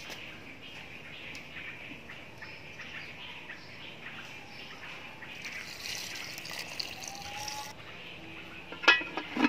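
Water poured from a plastic jug into a steel pot of soup, a hiss that stops abruptly, over birds chirping. Near the end, two sharp metallic clanks.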